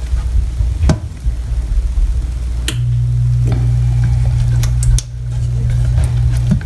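Silicone spatula stirring ketchup sauce in oil in a steel saucepan, giving a few light taps and scrapes against the pot. Under it runs a steady low hum, which grows stronger about three seconds in.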